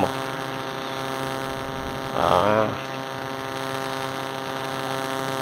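A steady hum made of many even tones, with a brief voice about two seconds in.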